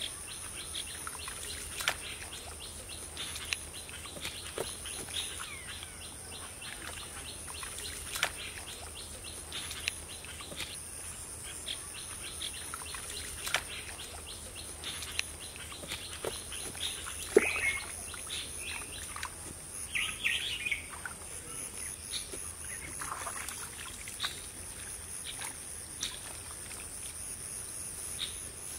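Birds chirping over a steady high-pitched insect drone, with occasional wet squelches and slaps of mud being scooped out by hand, the loudest about two-thirds of the way through.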